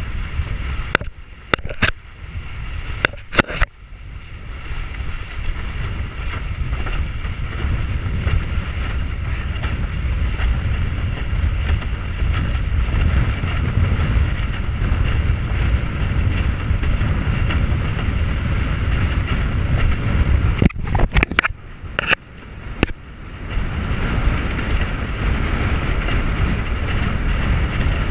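Wind buffeting the microphone and water rushing under a windsurf board planing across choppy sea. The rush drops away briefly twice, about a second in and again past twenty seconds, with a few sharp knocks.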